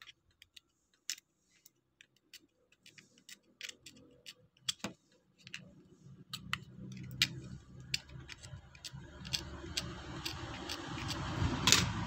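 Irregular sharp clicks and small scrapes of a utility-knife blade working on the thin enameled copper wire of a washing-machine spin-dryer motor's stator winding, readying the broken wire for splicing. A low hum builds in the background from about halfway, with one louder click near the end.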